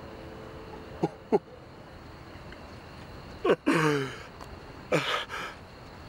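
An elderly man sobbing in grief: two short catching sobs about a second in, then a loud wailing cry falling in pitch at about three and a half seconds, and another cry near five seconds.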